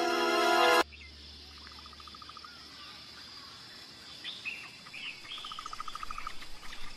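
A held music chord cuts off about a second in, leaving a quiet wild-country ambience: birds chirping and calling over a steady high insect hum, with two short rapid trills and more frequent calls in the second half.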